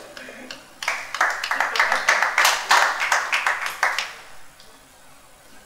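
Audience applauding, a rapid patter of many hand claps that dies away about four seconds in.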